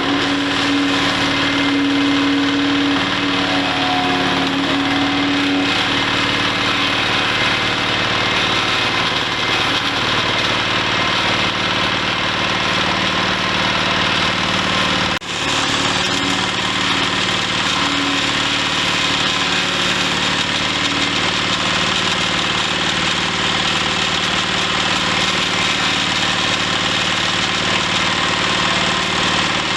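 Engine-driven wood chipper running steadily, its engine and machine noise continuous, with a brief drop in the sound about halfway through.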